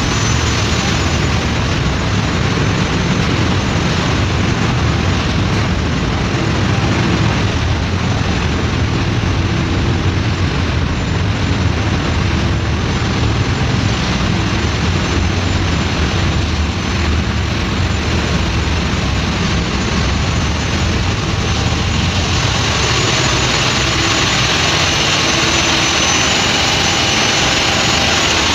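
Diesel engines running in a ship's engine room: a loud, steady machinery din, heaviest at the low end, without a break.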